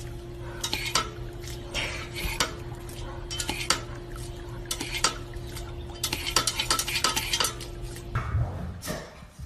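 Dog working a paw-pedal water fountain: irregular splashes and sharp clacks as water spurts up and the dog snaps at it, over a steady low hum that stops about 8 seconds in.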